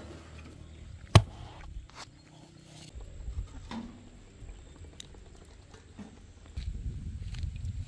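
A single sharp slap about a second in, as bread dough on a cushion pad is pressed onto the hot inner wall of a clay tanoor. Scattered light knocks follow, and a low rumble comes in near the end.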